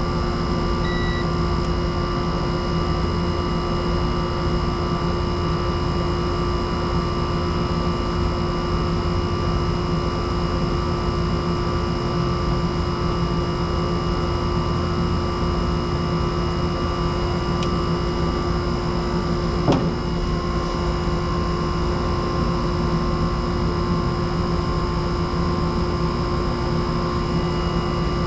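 Steady mechanical and electrical hum from an air conditioning unit, several constant tones over a low rumble, with one brief click about twenty seconds in.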